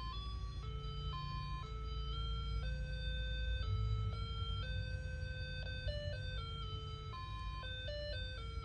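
Talking pocket calculator-alarm clock playing one of its electronic alarm melodies: a simple tune of single beeping notes stepping up and down a couple of times a second, over a steady low rumble.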